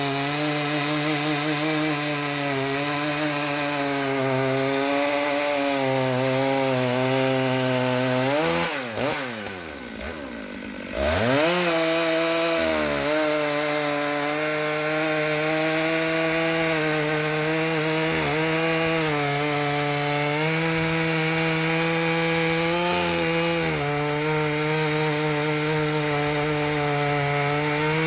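Stihl 661 chainsaw in an Alaskan chainsaw mill, running at high revs under load as it rips through a large oak log. About nine seconds in the engine drops off sharply, then revs back up about two seconds later and carries on cutting at a steady pitch.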